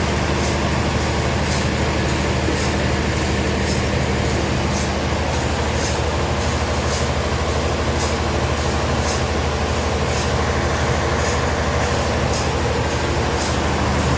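Sawmill machinery running steadily: a constant low hum with a regular high hiss about once a second.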